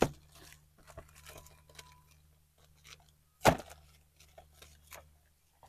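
Shiny plastic gift wrap crinkling and tearing as a gift box is unwrapped by hand. There is a sharp rip at the start and a louder one about three and a half seconds in, with lighter crackles between.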